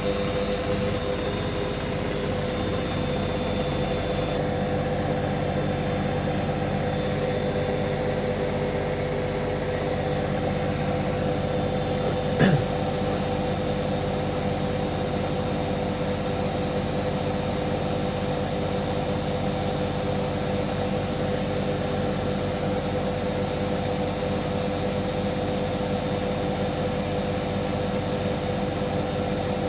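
Hoover front-loading washing machine spinning at high speed on its final 1400 rpm spin: a steady motor whine and drum rush that holds level without rising or falling. A single short knock sounds about twelve seconds in.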